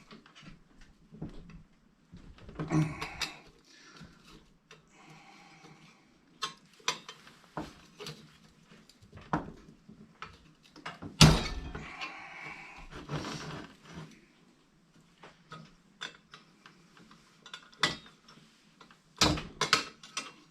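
Scattered metal clicks, clinks and knocks of a wrench and lantern parts being handled while working a tight nut off a Coleman 220F lantern's cleaning-tube fitting, with one sharp, loud knock about 11 seconds in.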